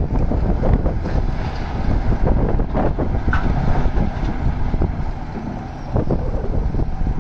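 Hitachi Zaxis 670H hydraulic excavator's diesel engine running hard as it swings and dumps a bucketful of earth into a tipper truck's steel bed, with uneven knocks and clatter of the load landing. Wind buffets the microphone throughout.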